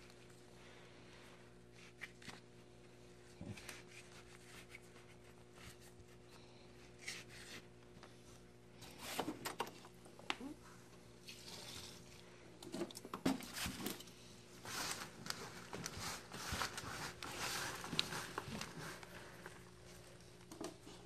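Potting soil being scooped from a plastic zip-top bag and added to a plastic plant pot: intermittent rustling, crinkling and scraping with small clicks, busiest through the middle and second half, over a faint steady hum.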